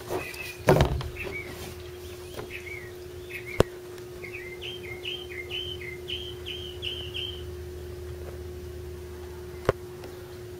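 A small bird chirping over and over, the chirps coming faster into a quick run about five seconds in. Rustling handling noise near the start and two sharp clicks are heard, over a steady low hum.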